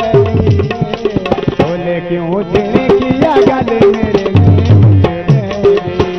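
Instrumental passage of a Saraiki mahiya folk song: tabla playing a busy rhythm, its deep strokes sliding in pitch, under a melodic instrument line.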